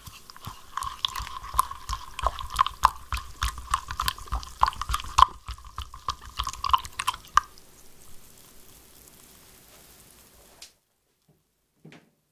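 Instant coffee, sugar and hot water being stirred in a glass beaker to dissolve them into coffee syrup: the utensil taps and clicks quickly and irregularly against the glass, which rings, with liquid swishing. The stirring stops about seven and a half seconds in.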